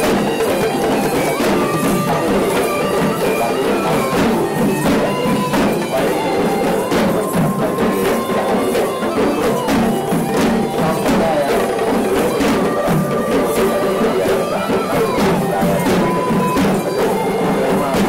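Sri Lankan traditional procession drumming: a troupe of hand drums and small stick drums beating a fast, busy rhythm, with a reed pipe playing a held, wavering melody over it.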